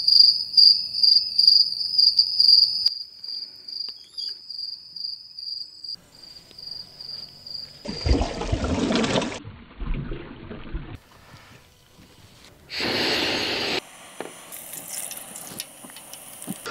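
Crickets chirping in a fast, steady high trill for about the first six seconds, then fading out. Two short bursts of rushing noise follow, one about eight seconds in and another about thirteen seconds in.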